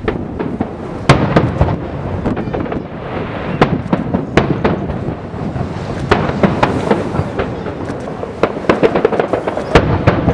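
Aerial fireworks display: shells bursting one after another in sharp bangs and deeper booms, with dense crackling between them.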